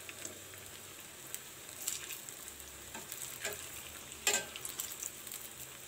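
Batter fritters (bondas) deep-frying in hot oil in a steel pan: a steady faint sizzle with fine crackling, and a few sharper clicks, the loudest a little past four seconds in.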